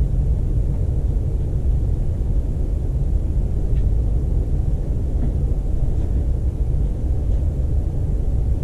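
Steady low rumble of background noise, with a few faint light clicks of a small spoon tipping copper carbonate powder into a plastic container on a triple-beam balance.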